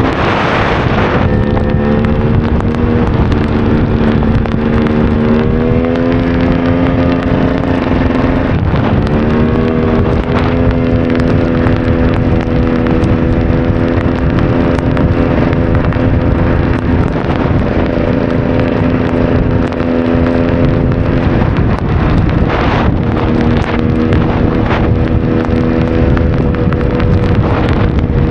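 KTM EXC 300's two-stroke single-cylinder engine running under way at a fairly steady pitch, rising around five seconds in and dipping briefly near nine and twenty-two seconds as the throttle changes. Wind buffets the microphone throughout.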